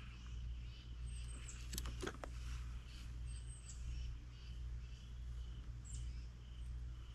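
Quiet handling of fishing line: a few light clicks about two seconds in as a tiny plastic bead is threaded onto a monofilament dropper loop. Underneath is a low steady hum with faint, short, repeated high chirps.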